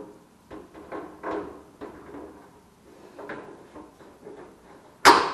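Electric wall heater's metal casing being hung on its wall bracket: scattered light knocks and rattles, then one loud sharp clack near the end.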